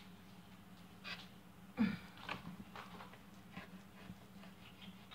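Faint clicks and light scraping of a fork pulling apart cooked chicken on a tabletop, over a steady low hum, with one slightly louder short sound about two seconds in.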